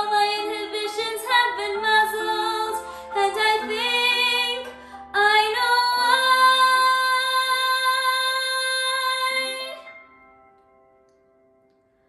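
A young woman singing a musical-theatre song over a sustained accompaniment, moving through several notes and then holding one long note from about five seconds in, which fades out about two seconds before the end.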